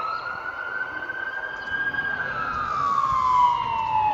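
Emergency vehicle siren wailing as the unit approaches: the tone holds high, then slowly falls in pitch through the second half.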